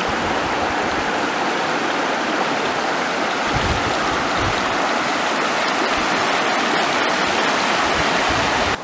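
Hoh River flowing fast and shallow over gravel bars: a steady, even rush of water.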